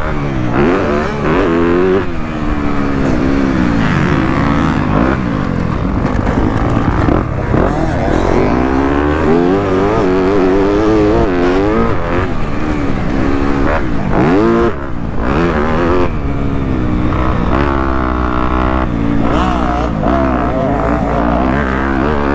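Motocross dirt bike engine revving hard, its pitch rising and falling again and again as the throttle is worked and the gears change. The sound dips briefly about two-thirds of the way through.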